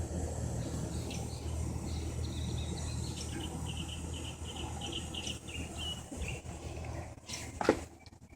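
A steady low machine hum, with a bird giving a quick series of chirps in the middle; the hum drops away near the end and a few sharp knocks follow.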